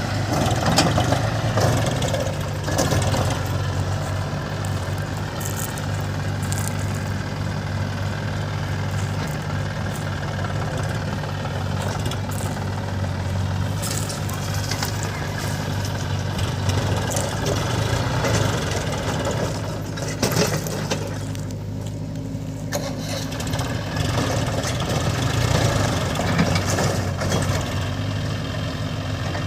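Heavy diesel engine running steadily, with scattered short knocks and clanks.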